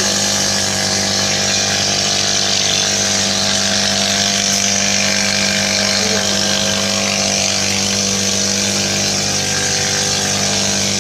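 A steady machine hum, low and unchanging, with a constant high hiss over it.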